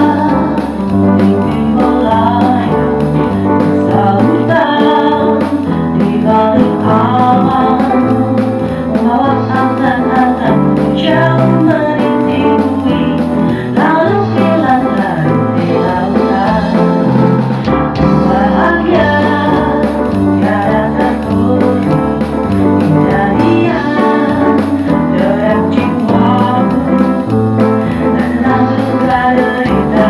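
A woman singing a pop ballad in Indonesian, accompanied by keyboard and an electronic drum kit keeping a steady beat.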